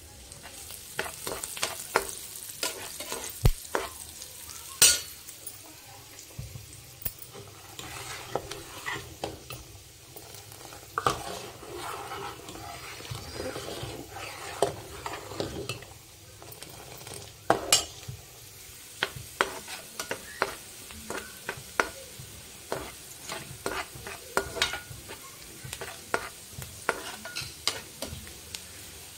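Pistachios frying in ghee in a pan, stirred with a spoon that clicks and scrapes against the pan again and again over a light sizzle.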